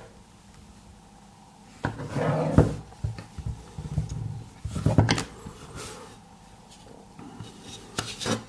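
Plastic parts of an air-conditioner remote control being handled and pried apart: irregular clicks and scrapes in bursts, about two seconds in, around four to five seconds in, and again near the end.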